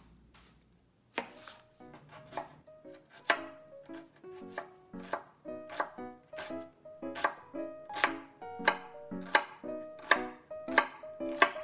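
Chef's knife chopping an onion on a wooden cutting board: repeated sharp knocks of the blade on the board, about two to three a second, starting about a second in.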